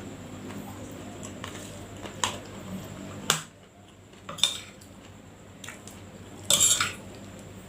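Spoon clinking and scraping against a plate while eating fried rice: a few sharp clinks, then a longer, louder scrape about two-thirds of the way through.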